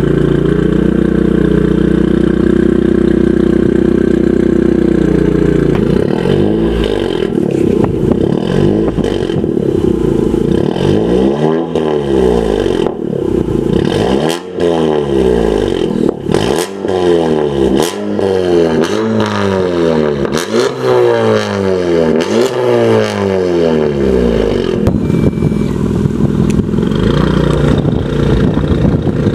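10th-gen Honda Civic hatchback Sport's 1.5-litre turbocharged four-cylinder, breathing through a Borla S-Type exhaust and Megan Racing downpipe, being free-revved while parked. It holds a steady note for the first few seconds, then gives a string of rev blips rising and falling about every one and a half to two seconds, and settles to a steadier note near the end.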